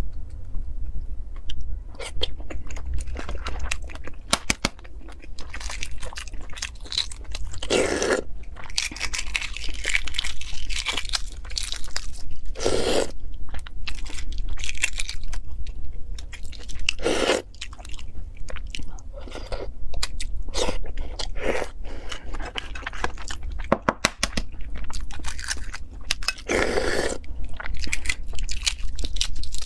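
Eggshells being cracked and peeled off boiled eggs by hand: a steady run of small crackles and crunches, with a few louder cracks now and then.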